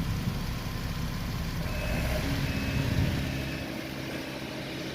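Ford Mustang engine idling steadily; its note shifts about two seconds in as the fuel rail pressure sensor is plugged back in. A few faint, short high beeps sound in the middle.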